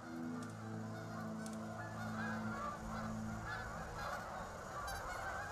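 A flock of geese flying over, honking repeatedly with many overlapping calls. Low held tones sound underneath and fade out about three and a half seconds in.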